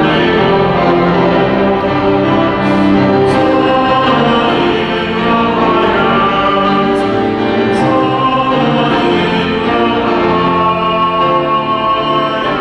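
Sung church music: voices singing a hymn over sustained instrumental accompaniment.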